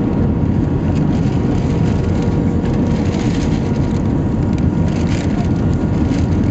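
Steady cabin noise inside an Airbus A320-214 on approach to landing: a deep, even rumble of its CFM56 engines and air rushing past the fuselage and extended flaps, with a faint steady hum on top.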